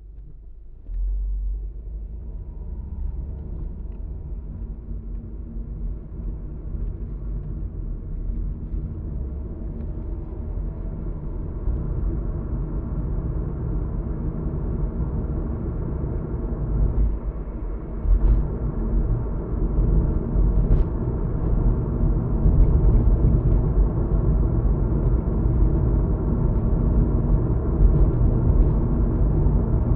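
Car cabin noise from a moving car: engine and tyre rumble with road noise, which comes in suddenly about a second in and grows steadily louder as the car gathers speed.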